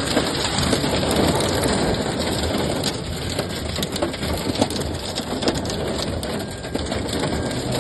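Strong wind blowing hard in a storm: a steady, loud rushing noise with many small crackling ticks throughout.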